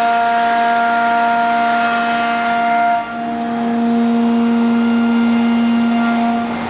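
High-speed milling spindle of a Huron KX50, rated at 20,000 rpm, cutting aluminium: a steady whine of several tones over a hiss. The balance of tones changes about three seconds in, with a lower tone taking over.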